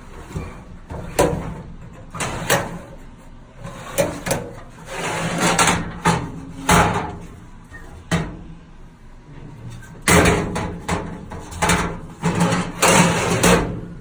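Steel drawers of a 1950s Craftsman tool chest being slid open and shut, a series of clunks at irregular intervals with a sliding rasp before some of them.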